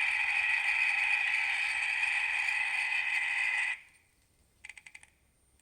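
Onboard sound of an Athearn N-scale 57-foot mechanical reefer car: the simulated refrigeration unit running steadily from its small speaker, a hum with a high whine, cutting off suddenly about four seconds in. A few faint clicks follow near the end.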